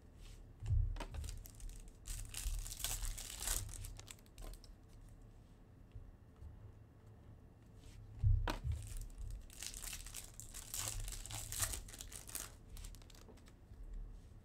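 Foil wrappers of baseball card packs being torn open and crinkled, two packs in turn. Each starts with a dull thump, about a second in and again about eight seconds in, followed by a few seconds of crackling.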